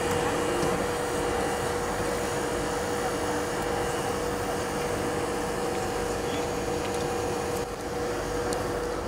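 Steady mechanical drone with a constant hum, the engines of idling fire-service and emergency vehicles.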